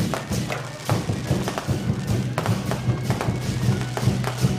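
Large barrel drums of a temple-procession drum troupe beaten in a quick, uneven pattern of sharp strikes, over a low steady hum.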